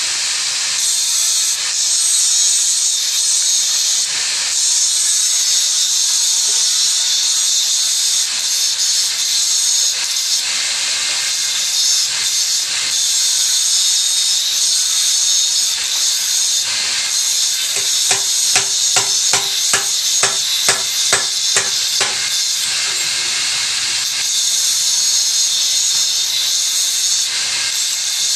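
Handheld electric angle grinder cutting metal with an abrasive disc: a steady, loud hissing grind with a faint motor whine under it. Partway through, a run of sharp knocks, about two or three a second, lasts several seconds.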